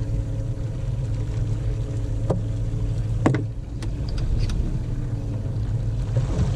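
Fishing boat's engine running steadily, with a couple of sharp knocks a little over two and three seconds in.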